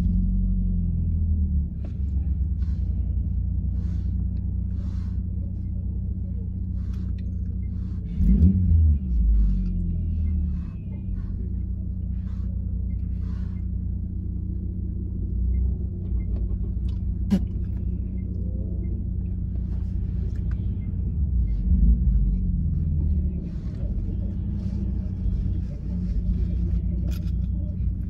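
Car engine idling with a steady low rumble, heard from inside the car, its pitch rising briefly twice: about eight seconds in and again about twenty-two seconds in.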